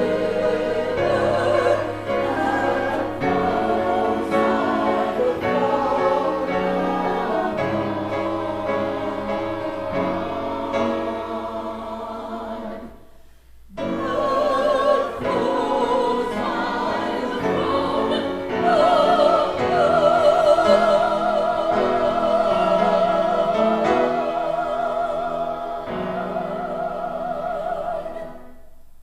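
Church choir singing an anthem, with held notes with vibrato. It pauses briefly about halfway through and ends on a chord that dies away near the end.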